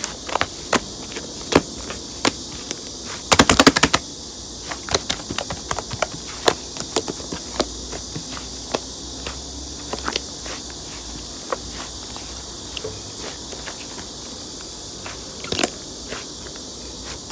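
Fluffy slime being pressed and poked by hand, giving irregular crisp clicks and pops, with a quick run of crackles about three and a half seconds in.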